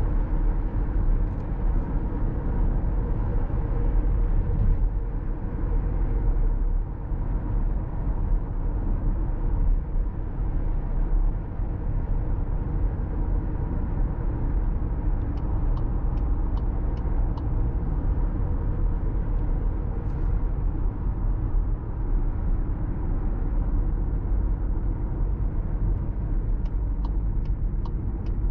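Cabin noise inside a 2024 Volkswagen Tiguan 1.5 eTSI cruising on a motorway: steady tyre and wind noise with a low engine hum. Two short runs of turn-signal ticks, about three a second, come about halfway through and near the end.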